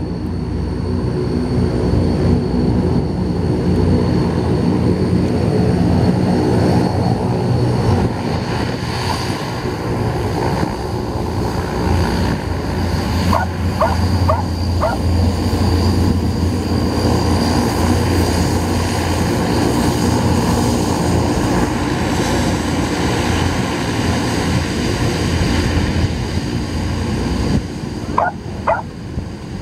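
Antonov An-12BK's four Ivchenko AI-20 turboprop engines running as the aircraft taxis past: a steady, loud propeller drone with a thin high whine above it.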